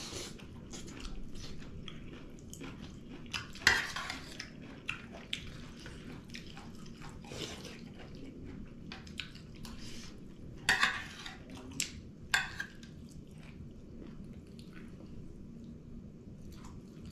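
Metal spoon clinking and scraping against a stainless steel plate, with chewing between. The sharpest clink comes a few seconds in, and three more come close together about two-thirds through.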